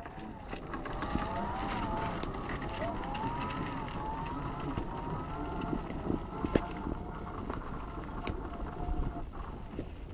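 Electric drive motor of a Meyra Optimus 2 mobility scooter whining, its pitch rising and falling as it moves off on ice, then holding steadier, over a low rumble of wind on the microphone and a few sharp clicks.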